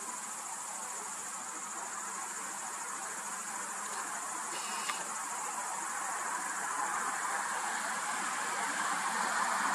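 Steady high-pitched insect trilling, over the rushing noise of road traffic that grows steadily louder toward the end as a vehicle approaches.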